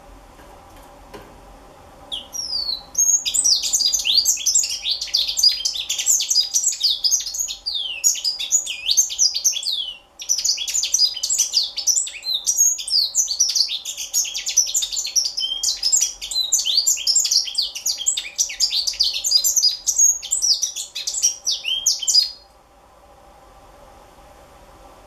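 Young African citril singing a long, fast twittering song of high chirps and trills, with a brief break about ten seconds in; the song stops a few seconds before the end.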